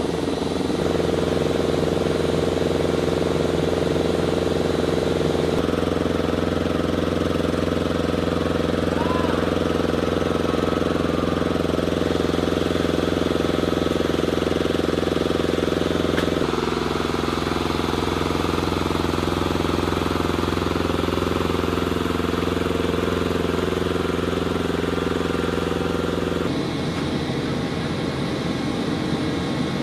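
Machinery running steadily, a dense hum of held engine tones. Its pitch and character shift abruptly about five seconds in, around the middle, and near the end.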